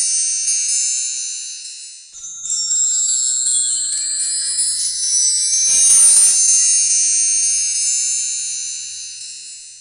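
Bright, high-pitched shimmering chime sound effect that fades, then swells again with a rising glide a little over two seconds in and a soft whoosh past the middle, before fading out at the end.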